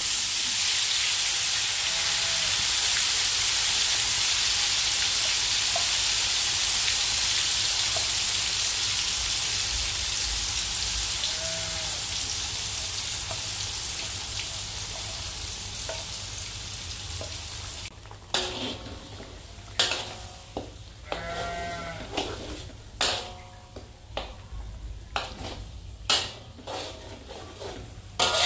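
Food hitting hot oil in a pan and sizzling loudly, the sizzle dying down slowly over the first two-thirds. Then a utensil stirring and scraping the pan in a run of sharp clicks and knocks, with faint livestock bleating a few times in the background.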